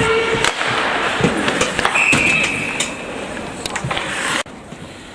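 Ice hockey rink in play: sticks and puck clacking in sharp knocks over a steady noisy din, with a shout at the start. About two seconds in a referee's whistle blows once, briefly, stopping play. The sound drops off abruptly near the end.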